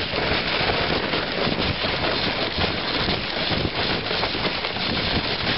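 A moving dog sled: a steady rushing noise of the runners sliding over snow, mixed with wind buffeting the microphone.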